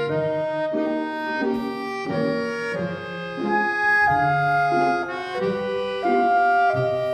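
Instrumental background music: a reedy melody with held chords, in the manner of an accordion or harmonica, changing notes about every half second.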